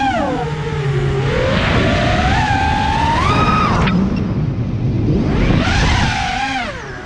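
Four T-Motor LF40 2450Kv brushless motors spinning 5-inch props on a freestyle FPV racing quad, whining with the throttle over rushing air. The pitch drops, then climbs to a peak about three seconds in and cuts off abruptly as the throttle is chopped. It swells up again shortly before the end and falls away.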